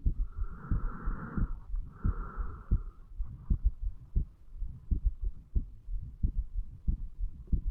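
A man's heartbeat heard close up through the chest over the mitral valve area, after drinking alcohol: a run of short, deep thumps, about three a second. Two soft rushing sounds lie over the beats in the first three seconds.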